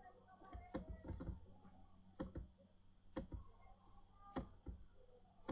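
Computer mouse clicking during a document scroll: several sharp clicks, roughly one a second, over a steady low electrical hum.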